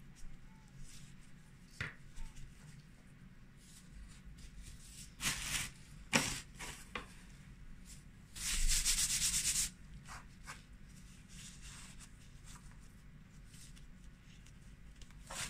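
Plastic-gloved hands and a metal spoon handling empanada dough and pork filling on a plastic cutting board: soft rubbing and scraping noises with a few light taps, and a louder raspy scrape about a second long a little past the middle.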